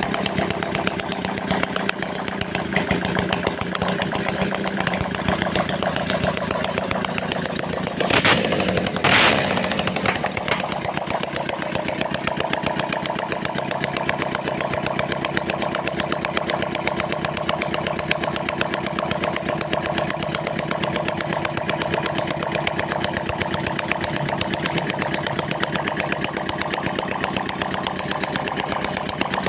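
Small motorcycle engine idling steadily, blipped twice in quick succession about eight seconds in, then settling back to idle.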